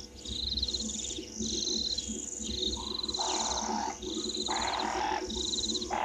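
Wild bird calls: a high trill repeats about once a second, and in the second half come two harsh, raspy screeches, typical of brown-headed parrots calling at their nest tree.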